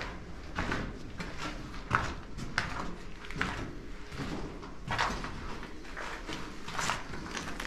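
Footsteps scuffing on a gritty concrete floor, about one to two a second, with hard breathing from the exertion of climbing many floors up from deep underground.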